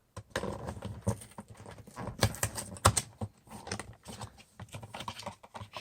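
Small cardboard blind box and its plastic wrap being handled and worked open by hand: irregular crinkling, tapping and clicking of packaging.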